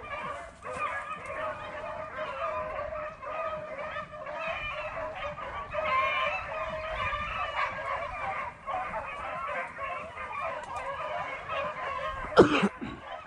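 A pack of beagles baying on a rabbit chase, several hound voices overlapping without a break. A single sharp bang rings out near the end, louder than the hounds.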